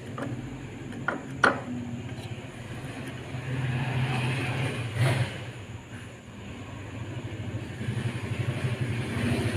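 Two sharp clicks of small metal parts being handled while a graphics card's cooler is refitted, then a small engine running steadily in the background, growing louder near the end.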